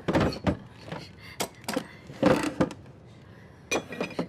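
A string of short knocks and clinks of hard objects being handled and set down, about eight in all, the loudest about two and a half seconds in.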